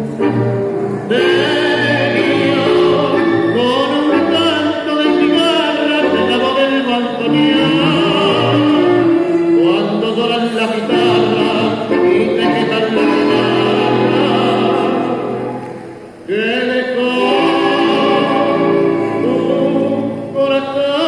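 Tango music with a singer, played for the dancers. The music thins out and drops briefly about three-quarters of the way through, then comes back in full.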